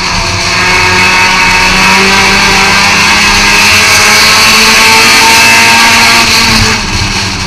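Thunder-class race car engine running hard under throttle, heard from on board the car, with a steady loud drone that eases off briefly near the end.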